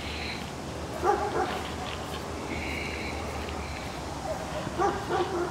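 A dog barking, two short barks: one about a second in and another near the end.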